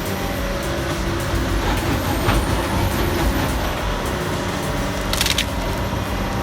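Heavy industrial shredding machine running steadily, its engine drone constant, with a short burst of noise about five seconds in.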